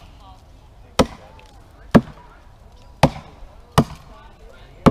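Axes chopping into standing tree trunks: about five sharp strikes into the wood, roughly one a second, each cutting off quickly.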